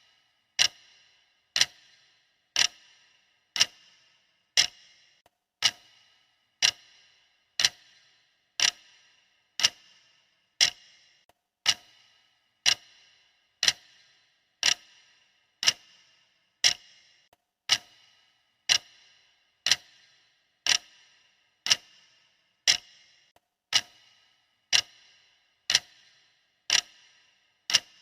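Clock ticking sound effect: a sharp tick once a second, each with a brief metallic ring, perfectly regular, marking the seconds of a count-up timer.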